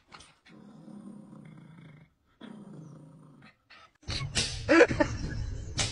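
Small Pomeranian-type dog growling: two long low growls, the second shorter. About four seconds in, a much louder, noisier sound with short pitched cries takes over abruptly.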